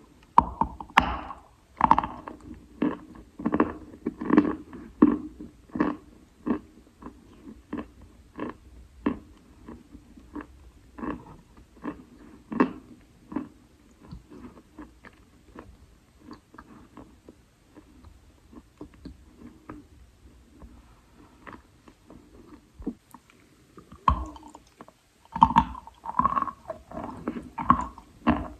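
Close-up biting and chewing of moistened Khrapovsky chalk: short crunches about twice a second, thinning out midway and coming thick again near the end.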